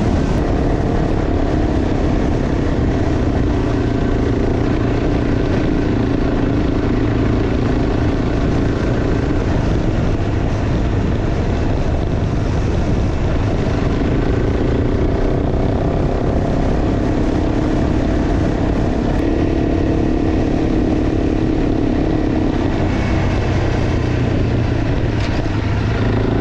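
Honda CRF300 Rally's single-cylinder engine running at riding speed, with wind and tyre noise. The engine note steps up and down in pitch a few times as the throttle changes.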